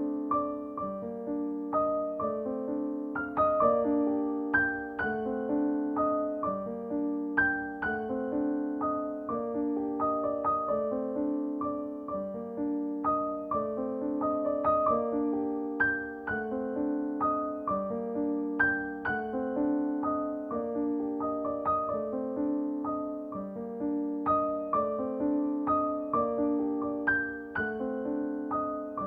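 Soft solo piano music playing a gentle, flowing melody over repeating arpeggio-like notes.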